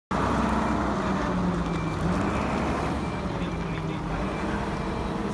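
Diesel engine of a Kato 25-ton rough terrain crane running steadily with a low, even hum, with faint short high beeps now and then.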